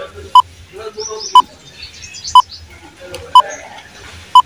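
Quiz countdown timer sound effect: five short, identical electronic beeps, one a second.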